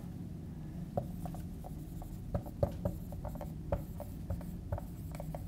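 Dry-erase marker writing on a whiteboard: a run of short, uneven strokes and taps over a steady low room hum.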